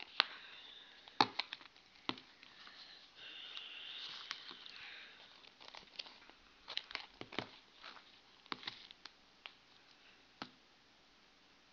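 Sticky homemade marshmallow slime being worked in the hand, giving irregular wet clicks and smacks. A soft hiss runs for about two seconds around three seconds in.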